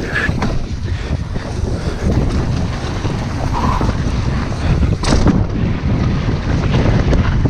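Wind buffeting an action camera's microphone as a mountain bike descends a dirt trail at speed, mixed with the rattle of the bike and its tyres over the ground. A sharp clack stands out about five seconds in.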